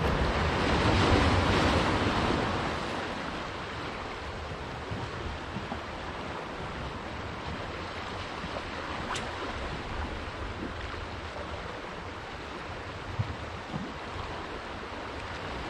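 Sea swell washing onto a pebble beach, with wind on the microphone; the wash is louder in the first two or three seconds, then settles to a steady, lower rush. A single faint click comes about nine seconds in.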